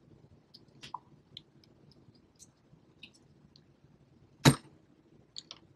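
Small handling clicks and ticks from an X-Acto knife and fingers working the cut outer jacketing off a cable end. The ticks are scattered and faint, with one sharp click about four and a half seconds in and two quicker clicks just after.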